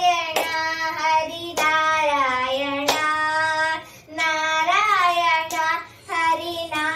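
A young girl singing long, wavering held notes in three or four phrases, with a few sharp hand claps between them.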